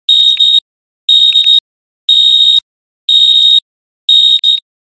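Countdown timer alarm beeping as time runs out: a loud, high-pitched electronic beep about half a second long, repeating once a second, five times.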